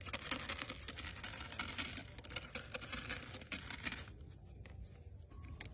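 Cardboard rustling and crackling rapidly for about four seconds, then dropping to a few faint clicks.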